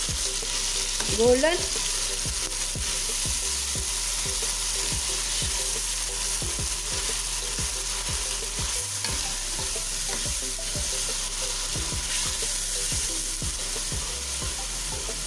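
Ground onion paste sizzling steadily in hot oil in a metal pot while a steel spoon stirs it, scraping and tapping the pot about twice a second. The onions are being fried until lightly golden.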